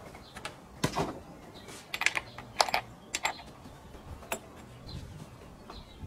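Irregular metallic clicks and taps of a screwdriver working on the bar and chain of a switched-off Husqvarna 365 chainsaw.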